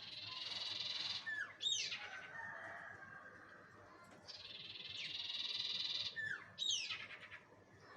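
Bird lure call (suara pikat) sounding twice: each time a buzzy, trilling call lasting about a second and a half, then a few quick downward-sliding notes and a lower held note.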